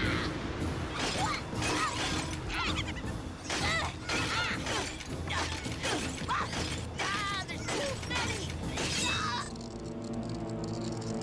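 Cartoon sound effects of ice shattering and smashing again and again, mixed with angry battle yells over dramatic music. The crashes stop about nine and a half seconds in, leaving only the music.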